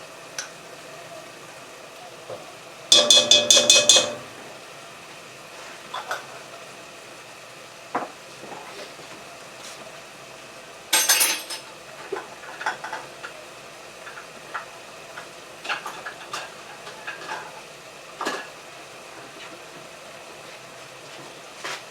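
A metal spoon clanking, scraping and stirring in a cooking pot, over a faint steady sizzle. A loud run of rapid ringing clanks comes about three seconds in and lasts about a second; another sharp clatter follows about eleven seconds in, with lighter knocks and scrapes in between.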